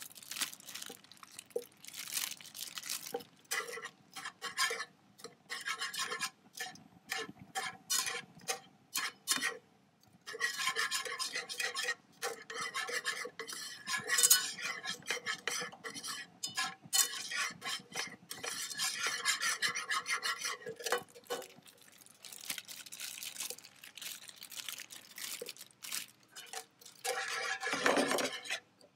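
Wire whisk scraping and clinking against a nonstick frying pan in quick rhythmic strokes, with short pauses, as butter is whisked into a thick cream reduction to make butter sauce.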